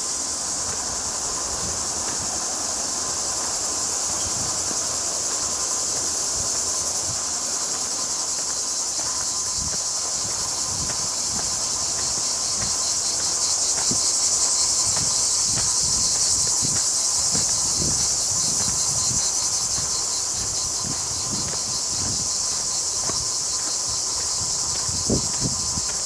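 Cicadas chirring in a loud, high, steady buzz with a fast pulsing, swelling in the middle. Footsteps thud softly on the trail, with one sharper knock near the end.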